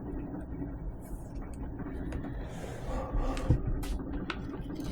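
Hands handling an adhesive LED light strip against a full-face helmet shell, making a few soft clicks and light rustles, with a small cluster of them about three seconds in, over a steady low hum.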